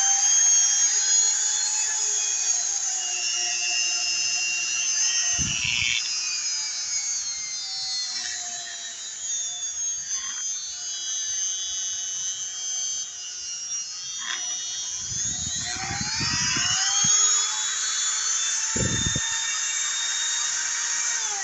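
INGCO MG1309P 130 W mini rotary grinder running with no load: a high-pitched electric motor whine. Its pitch shifts a few times, notably about five seconds in and again about sixteen seconds in, and a few dull low knocks come through.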